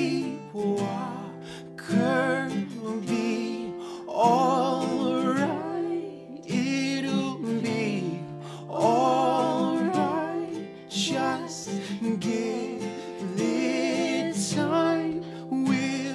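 Acoustic guitar strummed while a man and a woman sing together in harmony, in an unplugged folk song.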